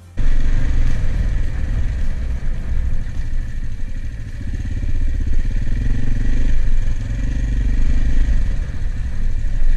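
AJP PR7 motorcycle's single-cylinder engine running steadily while riding.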